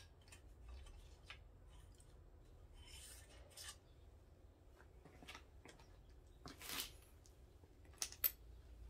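Faint handling noises of a bicycle wheel being taken off: small scattered clicks, a brief scrape about three seconds in, a longer rub near seven seconds, and two sharp clicks near the end.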